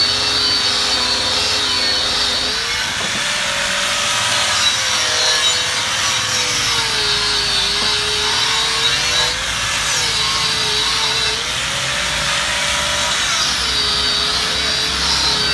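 Electric angle grinder running with a red abrasive disc pressed against an aluminium scooter wheel rim, a continuous grinding whine whose pitch sags and recovers every few seconds as the disc bites and eases off. It is smoothing the rim's bead edge, eaten away by tyre sealant, so the new tyre will seal without leaking air.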